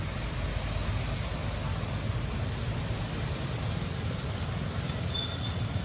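Steady outdoor background noise: a low, even rumble under a hiss, with a brief high chirp about five seconds in.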